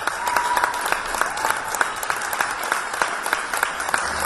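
Theatre audience applauding a dance company's curtain call: dense, steady clapping from many hands.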